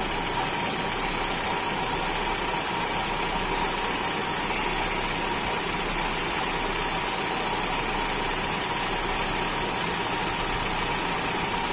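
Hyundai H1 van engine idling steadily, with the air-conditioning switched on for a cooling test after an A/C repair.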